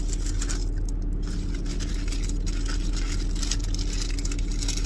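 Steady hum of a car idling, heard inside the cabin, with paper crinkling as a burger wrapper is unfolded.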